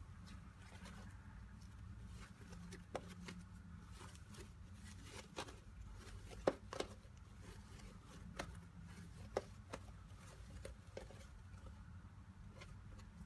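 Fluffy slime made from glue and face cream being stretched, folded and squished by hand, giving scattered faint clicks and pops, the sharpest about six and a half seconds in, over a faint steady hum.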